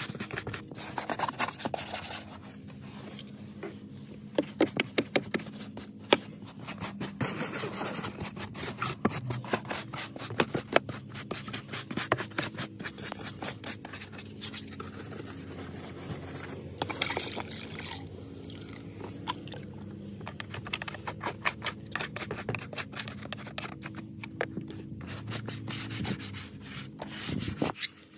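Brush scrubbing wet plastic interior trim around a minivan's door sill and seat base, in rapid back-and-forth strokes that come louder in spells.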